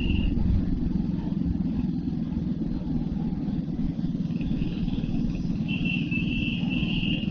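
Royal Enfield Hunter 350's single-cylinder engine running steadily as the motorcycle rides along, with a continuous low rumble.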